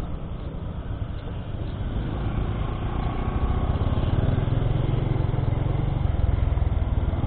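Honda Blade underbone motorcycle's small single-cylinder four-stroke engine running as the bike rides along, with road and wind noise. The engine grows louder from about two seconds in as the bike picks up speed.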